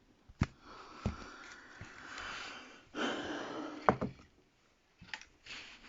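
Hands working on the opened tablet's small internal parts: a few sharp clicks and taps, with soft rustling between them.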